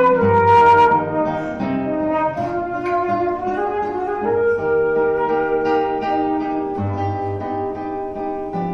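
Flute and guitar playing together: a slow melody of long held flute notes over plucked guitar.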